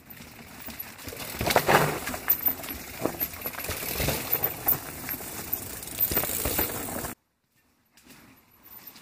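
Mountain bikes riding over rocky trail: tyres crunching and knocking on rock and loose stones, with chain and frame rattling, loudest as a rider passes close. The sound cuts off suddenly about seven seconds in, and fainter trail noise follows a second later.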